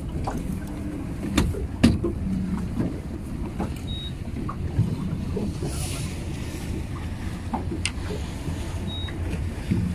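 Steady low rumble aboard a small fishing boat, with two sharp knocks about a second and a half and two seconds in.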